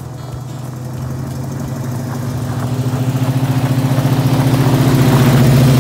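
Pickup truck's engine running steadily as the truck drives up and passes close by, growing louder as it nears, with rising tyre noise on the gravel.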